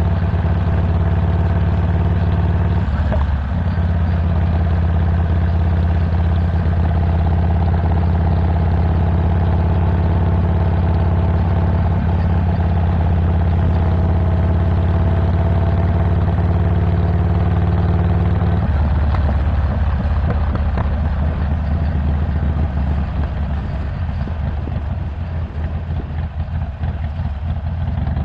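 Harley-Davidson Iron 1200 Sportster's air-cooled V-twin, Stage 1 with a 2-into-1 Cobra El Diablo exhaust, running steadily while being ridden. Its note falters briefly about three seconds in, drops at around two-thirds of the way, and turns rougher and quieter toward the end.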